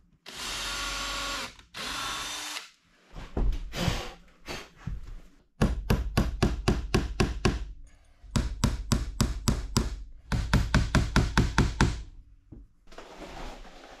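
Cordless drill running in two short bursts, then a few scattered knocks and three runs of fast, even knocking on wood, about seven strikes a second, as nails are hammered into the timber.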